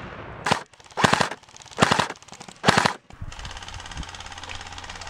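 Airsoft gun firing four short full-auto bursts, each a rapid string of shots lasting under half a second, spaced about a second apart. About three seconds in, the bursts give way to a steady low background noise.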